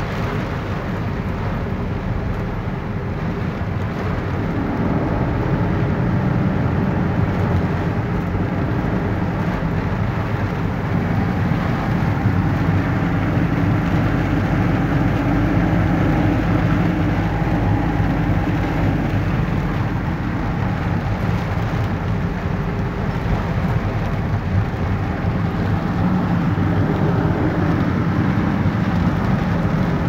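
Steady noise inside a vehicle driving on a rain-soaked road: the engine running and tyres on wet tarmac, with rain on the vehicle.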